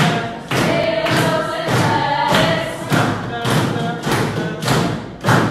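A group of young people singing together in unison, with a steady beat of thumps about twice a second.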